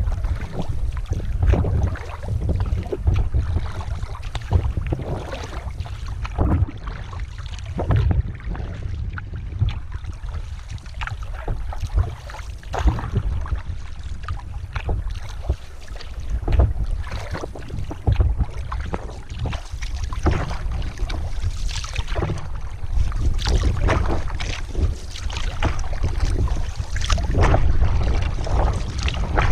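Solo canoe being paddled, heard through a boat-mounted action camera: paddle strokes splashing and the paddle knocking against the gunwale come through as repeated thumps over a steady low rumble.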